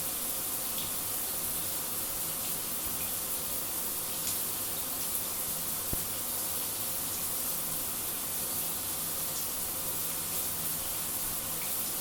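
Shower running: a steady hiss of water spray, with a few faint ticks.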